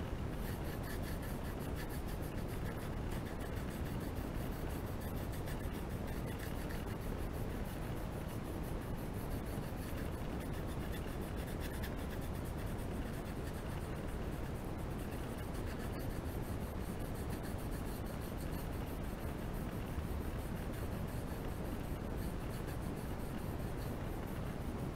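Pencil shading on paper: quick back-and-forth strokes scratching and rubbing steadily.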